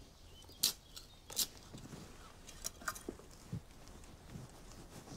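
Hands firming loose, crumbly soil around a newly planted tomato: faint crunching and pressing of soil, with two sharp clicks in the first second and a half, then a few lighter ticks and soft thuds.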